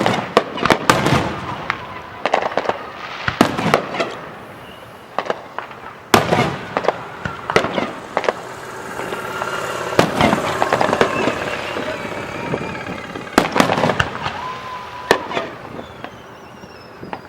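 Fireworks display: a rapid run of sharp bangs and crackling bursts, densest in the middle, with a few whistling shells, some falling in pitch, near the end.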